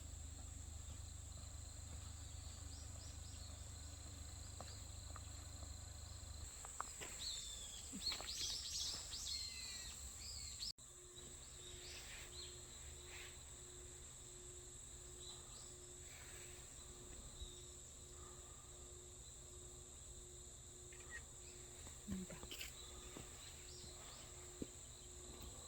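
Faint rural ambience: birds chirping for a few seconds about a third of the way in, over a steady high-pitched insect trill. A few scattered chirps follow later.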